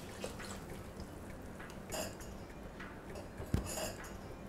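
Silicone spatula stirring a thin cornflour and coconut-water mixture in a non-stick kadai, scraping and lightly clinking against the pan, with a sharper knock about three and a half seconds in.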